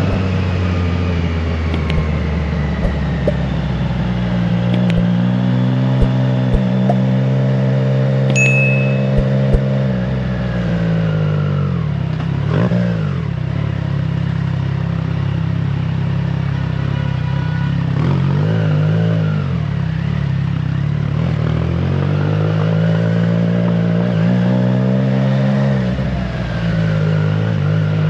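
Triumph Trident 660's inline three-cylinder engine through a FireTong aftermarket exhaust, running under way at a steady pitch. The engine note falls and climbs again about twelve seconds in and once more around nineteen seconds as the throttle comes off and back on, with a few sharp clicks in the first ten seconds.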